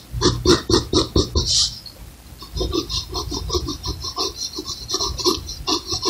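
Graphite pencil scratching on paper in quick short hatching strokes, about four to five a second, with a brief lull about two seconds in before the strokes resume.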